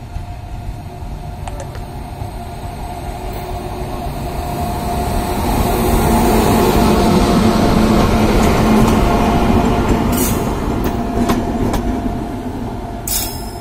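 Indian Railways WAG9HC three-phase electric freight locomotive passing close by: a steady hum over the rumble of its wheels on the rails swells to its loudest as it goes past, then fades. A few sharp clicks come near the end.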